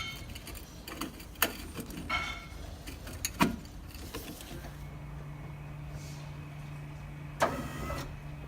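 Scattered knocks and clicks of headlamp parts being handled, then a short rushing sound lasting about half a second near the end.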